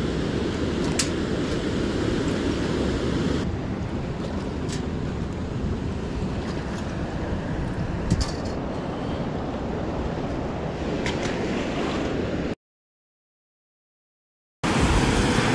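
Steady rush of spillway water churning below, a low continuous roar. It cuts off abruptly to silence about twelve and a half seconds in.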